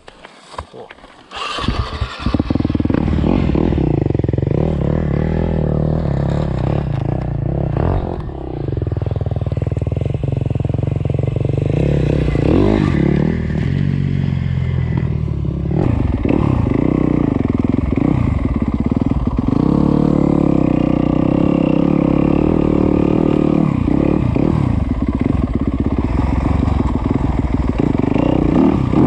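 Yamaha YZ250F four-stroke dirt bike engine. After a few knocks and some clatter, it comes in loud about two seconds in and runs on, revving up and down while the bike is ridden.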